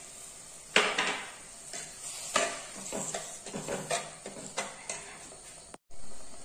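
Steel ladle stirring curry in an earthenware clay pot, scraping and knocking against the pot's side at irregular intervals, over a faint sizzle of the simmering curry.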